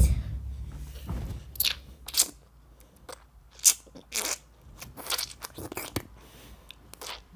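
A string of short, crisp crunching noises made close to a microphone, coming irregularly with quiet gaps between them.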